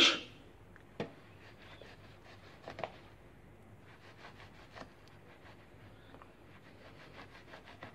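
Small knife scoring through the skin of a raw salmon fillet on a plastic cutting board: faint scratching cuts, with a couple of light clicks of the blade on the board early on and a run of quick little scratches later.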